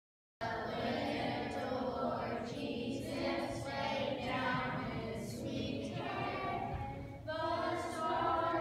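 A group of children singing together in a nativity pageant, several voices in unison. The singing cuts in suddenly about half a second in.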